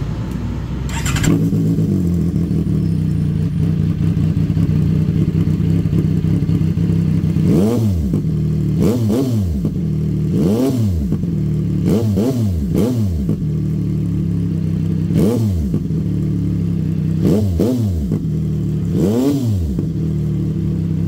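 CFMOTO 675 SR-R's 675 cc inline-three engine, fitted with an aftermarket slip-on exhaust, idling steadily, then revved in a series of about eight sharp throttle blips from about eight seconds in. Each blip rises and falls quickly.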